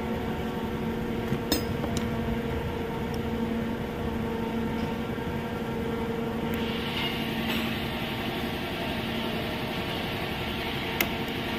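A machine running with a steady hum, with a few light clicks. A hiss grows louder about six and a half seconds in.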